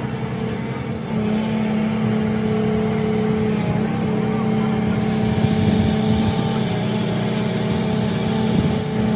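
An engine or motor running steadily, with a constant droning hum.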